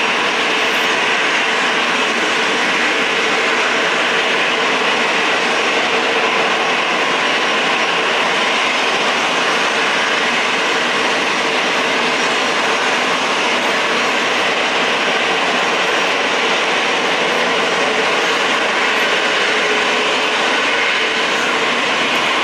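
Jet engines of airliners taxiing, a steady roar with a constant whine running through it.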